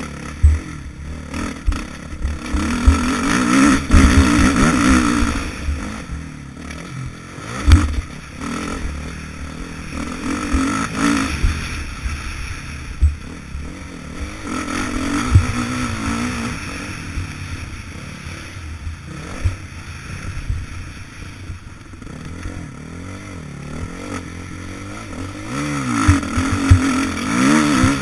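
Motocross bike engine revving hard and easing off in repeated surges as the bike is ridden around the track. Rumbling buffeting and occasional sharp knocks and clatter run underneath.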